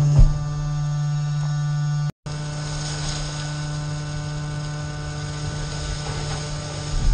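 Compactor container's hydraulic drive running with a steady low hum while its ram pushes black garbage bags through the chamber. A short thump comes just after the start, and the sound cuts out for a moment about two seconds in.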